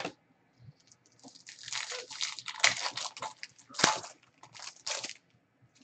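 A foil trading-card pack being torn open and crinkled by hand, with a dense run of irregular crackling for about four seconds. A short sharp click comes just before it.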